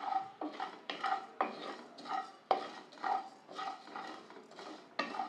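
Wooden spatula stirring coriander seeds dry-roasting in a nonstick pan: the seeds rattle and scrape across the pan in strokes about twice a second.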